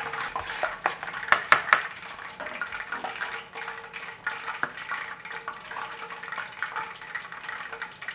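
Chopsticks whisking thick batter in a ceramic bowl, clicking sharply against the side several times in the first two seconds. Then wet squelching as raw chicken is turned and coated in the batter, over a steady crackle.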